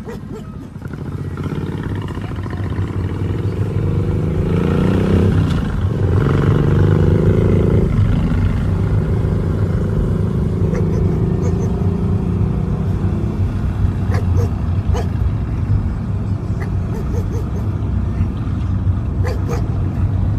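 Motorcycle engine revving up twice, rising in pitch each time, then running steadily with a low rumble.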